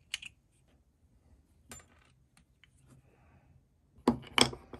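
Metal parts of an engine's piston and connecting rod clinking as they are handled, with a few sharp clicks from a metal pick. Near the end comes a quick run of louder clattering knocks as the piston is handled against the wooden bench.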